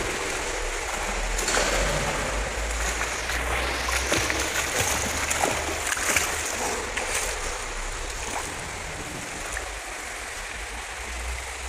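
Pool water splashing from a swimmer's backstroke arm strokes and kicks, busiest in the middle and easing off after about eight seconds, over a steady low hum.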